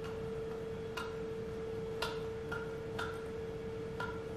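Short ticks about once a second over a steady hum.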